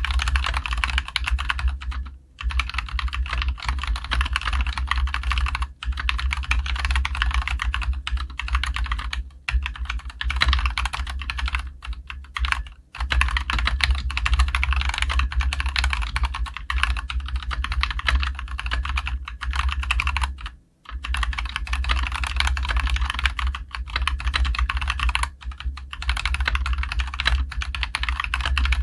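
Fast, continuous typing on a COX CK87 tenkeyless mechanical keyboard with linear Gateron Yellow switches and ABS double-shot keycaps: a steady, clean clatter of keystrokes with only slight case ring. The typing breaks off briefly three times, about two, thirteen and twenty-one seconds in.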